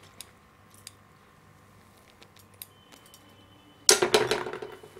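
Metal lemon squeezer set down on a hard kitchen surface with a short clatter about four seconds in, after a few faint small clicks.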